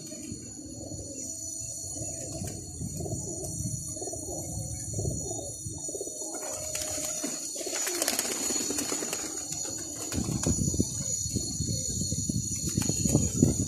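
Domestic pigeons cooing, a low repeated rumbling coo from several birds on their perches.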